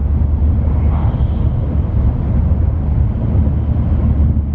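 Shinkansen bullet train running at high speed, heard from inside the passenger cabin as a steady, deep rumble.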